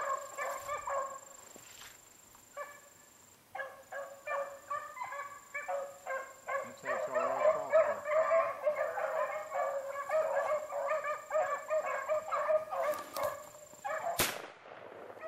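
A pack of beagles baying on a rabbit's track, a chorus of repeated bays that breaks off briefly about two seconds in and then picks up again. A short sharp click comes near the end.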